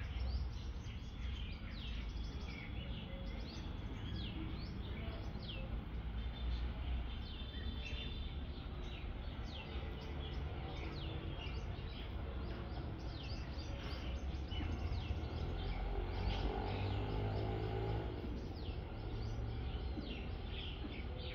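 Many small birds chirping in quick, short, downward-sliding notes over a steady low rumble of background noise, with a louder low sound for a few seconds about two-thirds of the way through.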